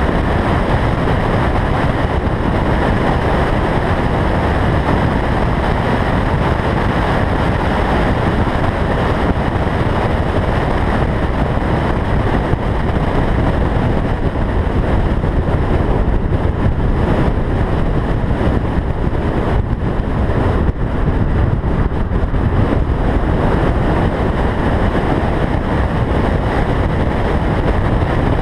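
Steady wind rush over a roof-mounted camera on a car lapping a racetrack, with the car's engine and road noise blended underneath.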